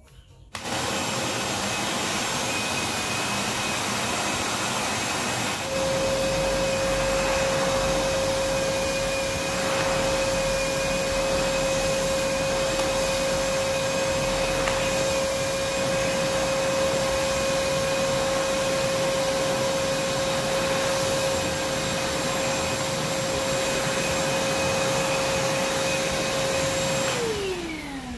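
Fisch MB10LT 600-watt wet-and-dry vacuum cleaner starting up suddenly about half a second in and running steadily, with a strong steady whine added about six seconds in. Near the end the motor is switched off and the whine falls in pitch as it runs down.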